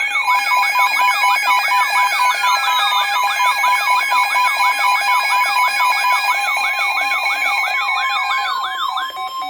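Emergency Alert System attention signal: a steady two-tone pitch with a fast siren-like yelp sweeping up and down over it, several sweeps a second, cutting off near the end.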